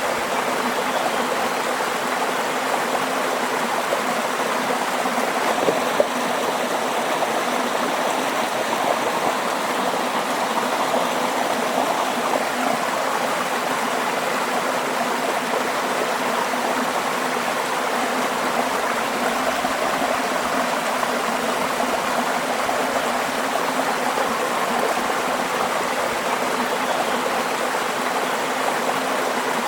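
Running water flowing steadily, an even rushing and babbling with no pauses.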